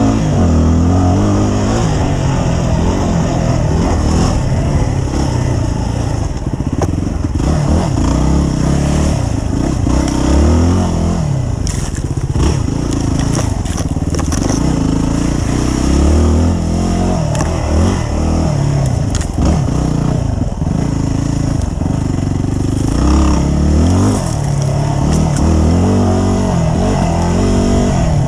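Dirt bike engine revving up and falling back again and again as the rider accelerates and eases off along a tight trail.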